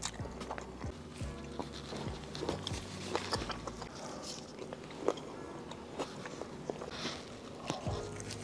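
Biting and chewing of Hot Cheetos-crusted fried seafood: a string of crisp crunches and wet mouth clicks at irregular intervals.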